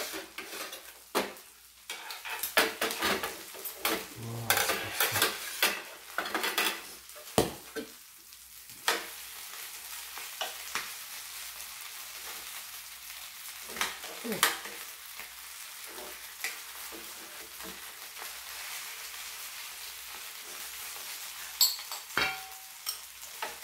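Pajeon sizzling in oil on an electric griddle, a steady hiss. Chopsticks and a spoon clink and scrape against the griddle, pot and plates, many times in the first eight seconds and then only now and then.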